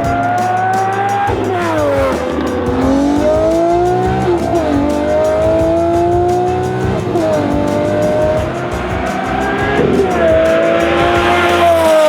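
Lamborghini Murciélago V12 accelerating hard through the gears, its pitch climbing and then dropping sharply at each upshift, about three times.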